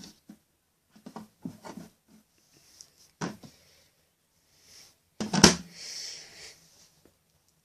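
Handling noises while a toy is loaded into a plastic toy washing machine: small clicks and taps, a sharp knock a little over three seconds in, then a loud plastic clack about five and a half seconds in followed by about a second of rustling.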